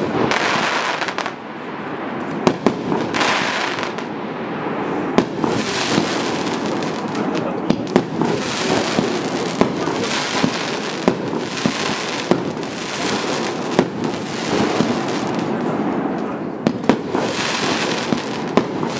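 A 38 mm, 100-shot firework cake firing its shells one after another: sharp bangs of shells bursting, several a second at times, over a continuous hiss and crackle.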